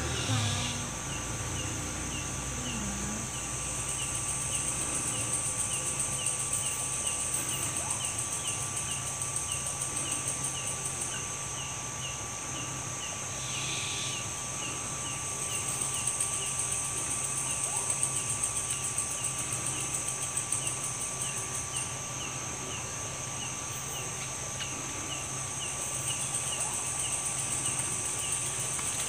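Night-time insect chorus: crickets keep up a steady high-pitched trill, with a regular chirp repeating about two to three times a second.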